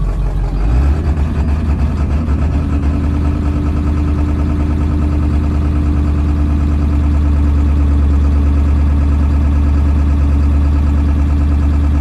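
7.3 L Powerstroke turbo diesel V8 heard from inside the truck's cab, stepping up from idle to high idle about a second in and then running steadily.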